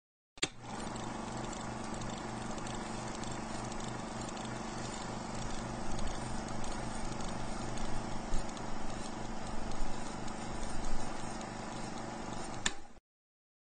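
Old film projector sound effect: a steady mechanical whir with hiss and a fast rhythmic clatter, louder in the middle stretch. It starts with a click about half a second in, and it ends with a click and cuts off suddenly shortly before the end.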